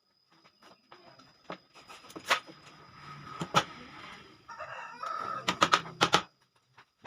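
Scattered sharp knocks and clicks, with a quick cluster of them near the end, from wood and tools being handled at a workbench. A chicken calls in the background, and a faint steady high whine runs underneath.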